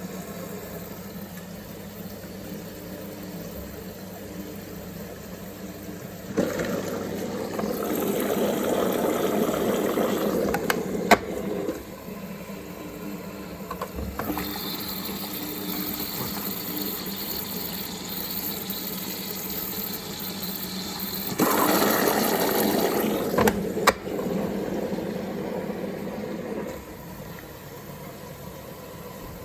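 Samsung WF1700WRW front-loading washing machine in its rinse stage: water rushes into the drum in two spells of several seconds, the first about six seconds in and the second past the middle, over a steady low hum from the machine, with a couple of sharp clicks.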